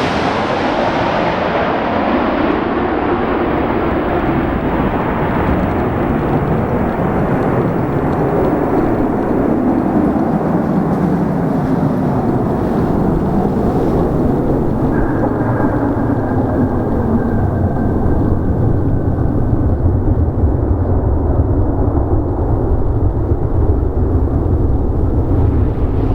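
Boeing 737-800 jet engines after the airliner has passed close by: the roar loses its hiss and slides lower in pitch, a faint whine shows through around the middle, and a deep low rumble builds toward the end.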